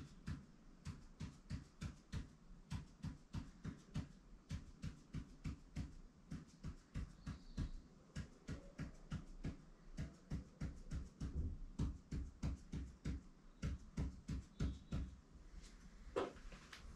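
Ink pen tapping and striking paper in quick short strokes, about three a second, as rows of tally marks are drawn one after another. One louder, longer sound near the end as the hand stops drawing.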